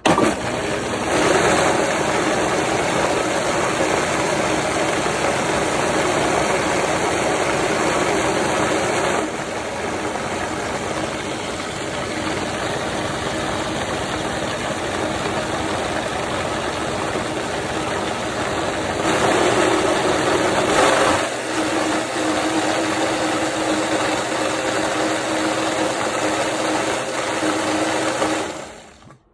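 Countertop blender motor running steadily as it blends a thick quinoa pancake batter. Its sound drops slightly about nine seconds in, rises again near twenty seconds, and winds down just before the end.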